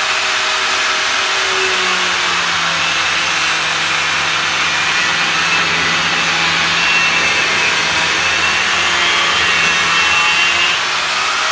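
Handheld electric angle grinder running steadily, its disc cutting into a frozen, rock-hard fruit: a steady motor whine under a grinding hiss.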